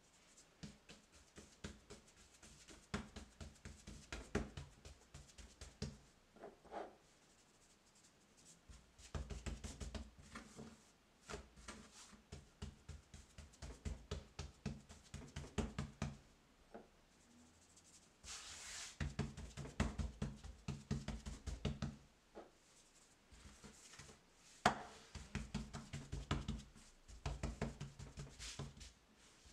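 Fingertips pressing and patting a ball of yeast dough flat on a floured wooden tabletop: runs of quick soft taps and thumps in several bursts with short pauses between, and a brief rustle of the hands on the board partway through.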